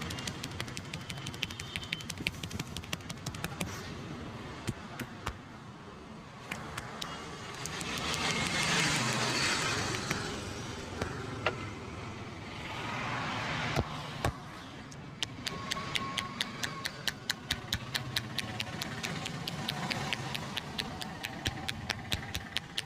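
Quick, even hand slaps and taps of a barber's head massage, about three to four a second in the second half, over steady street traffic noise that swells twice.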